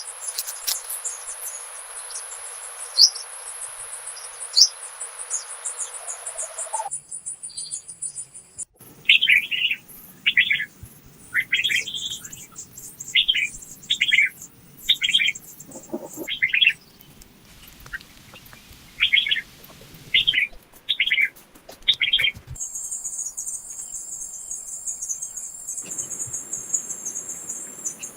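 Nature ambience in three sections. First a steady high insect trill with scattered bird chirps. Then a bird repeats a short call about once a second for some thirteen seconds, and near the end comes a steady high cricket trill.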